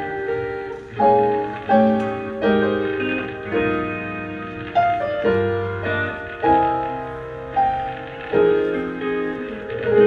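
Instrumental outro of a slow live ballad with no singing: chords struck about once a second, each left to ring out and fade.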